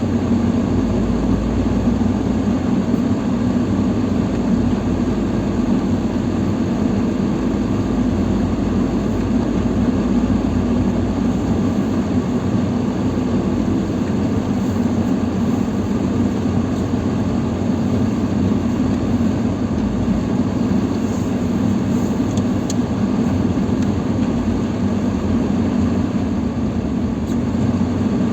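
Lada Niva Travel driving at a steady pace, with engine and road noise running evenly.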